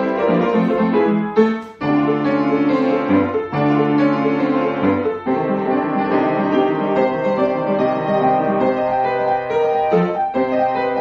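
Upright piano played solo: a fast stream of notes and chords over moving bass notes, with a brief break about two seconds in before the playing carries on.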